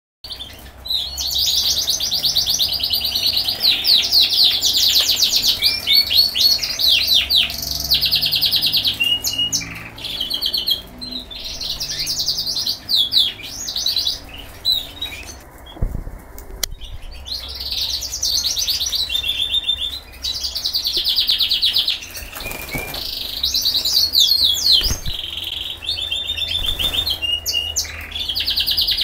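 Caged frilled canaries (Padovan and Parisian frills) singing: long, fast trills and rolls of rapidly repeated high notes, in phrases broken by short pauses. The song stops for about a second around halfway through, and a few low knocks come in the second half.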